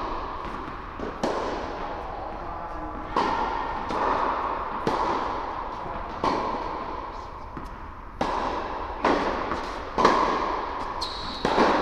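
Tennis balls struck by rackets and bouncing on an indoor hard court, about ten sharp pops spaced roughly a second apart, each ringing on in the echo of the large hall.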